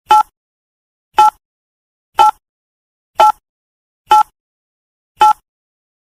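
Countdown timer sound effect: a short, identical tick once a second, six times.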